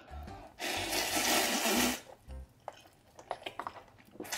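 A long slurp of instant ramen noodles being sucked into the mouth, lasting about a second and a half, followed by soft chewing and mouth clicks.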